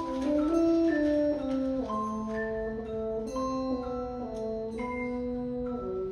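A school orchestra playing a melody of held notes that change every half second to a second.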